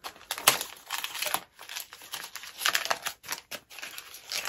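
Small brown kraft-paper packet crinkling and rustling in the hands in a quick, irregular run of rustles as it is unfolded and opened.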